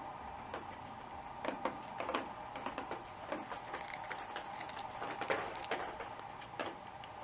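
Loose links of motorcycle roller chain clicking and rattling as they are handled and fitted, a string of irregular small metallic clicks.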